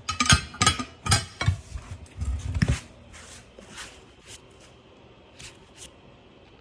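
Steel pry bars clanking and knocking against a wheel rim and a manual tire changer as a tire is pried off the rim: a quick run of metallic clanks for about three seconds, then two light clicks near the end.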